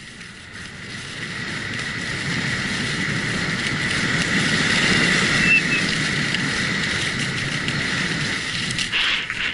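Skis running and scraping over packed snow, with wind rushing over the camera microphone, growing louder over the first few seconds as the skier picks up speed on the run-in to a large kicker. A thin steady high tone runs underneath.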